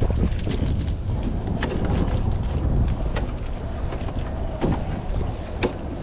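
Wind buffeting the microphone in an uneven low rumble, with scattered sharp clicks and knocks.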